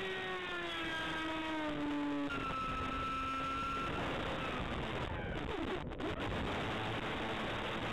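Electric motor and propeller of an F-27Q Stryker RC plane, heard from the onboard camera. Its whine falls in pitch over the first two seconds and holds a steady note for a moment. From about four seconds in, the rush of air over the microphone takes over and the motor becomes faint.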